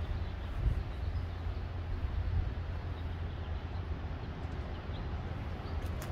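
Outdoor ambience: a steady low rumble under an even hiss, with a few faint bird chirps.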